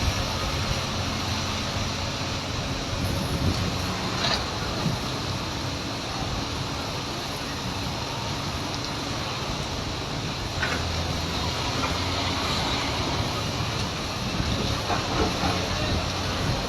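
Heavy construction machinery running steadily: a low diesel engine drone under a broad hiss, with a few light knocks.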